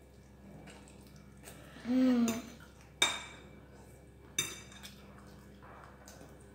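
Metal forks clinking and scraping on ceramic plates while eating noodles, with two sharp clinks about three and four and a half seconds in. A child's short hum about two seconds in.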